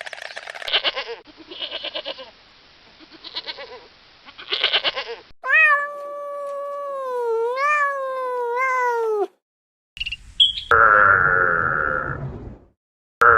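Domestic cat meowing: one long, drawn-out meow of about three and a half seconds that bends up in pitch a few times, then after a short gap a second loud meow near the end. Before the meows, for the first few seconds, a chicken clucks in short choppy calls.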